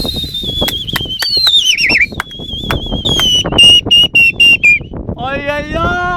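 A person whistling shrilly: one long, slowly falling, wavering whistle, then a string of short whistle blasts, over a rough rustling background. Near the end a drawn-out shouted call begins.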